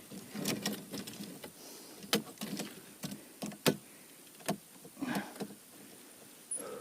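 Gear being handled by hand: a string of sharp clicks and knocks, about six of them spread irregularly, with a short rustle about five seconds in.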